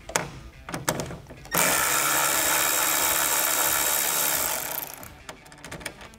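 Cordless electric ratchet backing out a 10 mm grille bolt. A few light clicks come first, then the motor whirs steadily for about three seconds and winds down.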